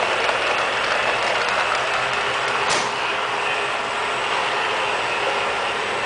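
Robot vacuum cleaner running steadily across a hard tile floor, its motor and spinning side brush making an even whirring noise, with one sharp click about halfway through.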